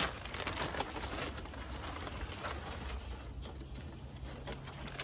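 Plastic bag rustling and crinkling as it is handled, a dense run of short crackles.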